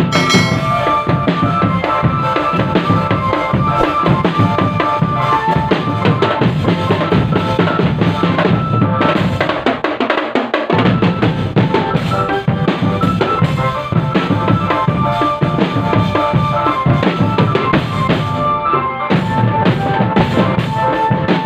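Drum band playing: bass drums and snare drums keep up a steady, dense beat under sustained melody notes. The bass drums drop out for about a second midway, then come back in.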